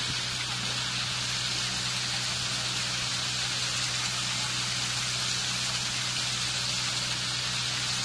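Water falling and splashing over the stacked stone blocks of a man-made waterfall fountain, a steady, even rush with a steady low hum underneath.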